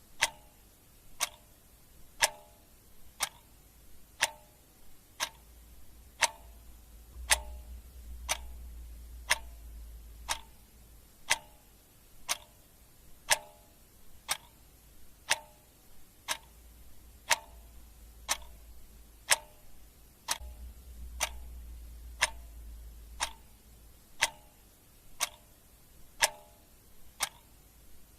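Clock ticking sound effect: steady tick-tock at about one tick a second, alternating louder and softer ticks.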